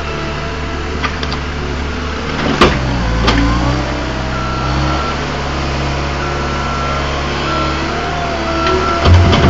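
Caterpillar 287B compact track loader's diesel engine running steadily, with two sharp knocks about two and a half and three and a half seconds in and another heavy knock near the end. A faint high tone sounds in short repeated dashes in the second half.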